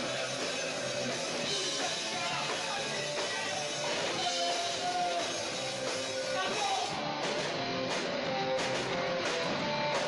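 Punk rock track playing, with strummed electric guitar.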